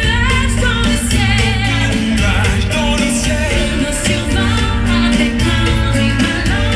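Show soundtrack music with a singer over a steady bass and beat.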